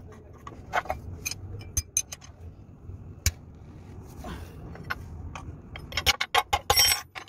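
Metal tools and engine fittings clicking and clinking as the diesel fuel line on a truck engine is worked loose to bleed air from it. There is a steady low hum underneath, and a quick run of metallic clinks near the end.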